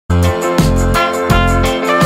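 Instrumental background music with a steady beat and a bass line, starting abruptly at the very beginning.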